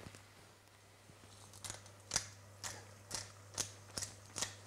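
Hand-twisted pepper mill grinding peppercorns over the pot, making short crunching clicks about twice a second that start about a second and a half in.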